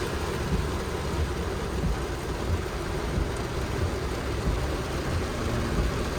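Mitsubishi Strada pickup driving through floodwater: a steady rush of churned water against the truck over a low rumble, with irregular low thumps.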